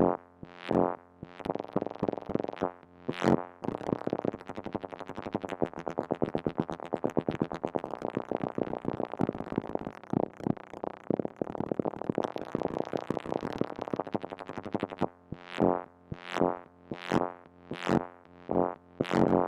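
Moog Mother-32 analog synthesizer sounding short pitched pulses whose timing and pitch are modulated chaotically by a Comdyna GP-6 analog computer running the Lorenz equations. Separate plucks come at uneven intervals, then about three seconds in they run together into a rapid, dense stream, thinning back to separate plucks about fifteen seconds in.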